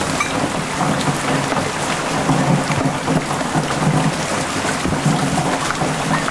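Heavy typhoon rain falling steadily on leaves, tin cans and ground, a dense hiss of countless drops, with runoff water rushing and splashing across the flooded ground.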